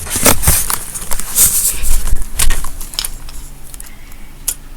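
Rustling and clicking of objects being handled close to the microphone, dense for the first three seconds, then a few scattered clicks.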